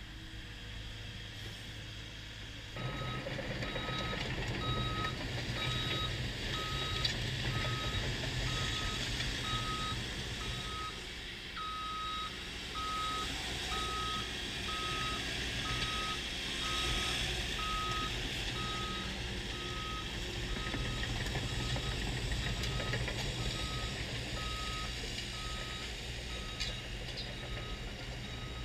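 CAT 311F track excavator's diesel engine running, picking up load about three seconds in, while its motion warning alarm beeps steadily, about one and a half beeps a second.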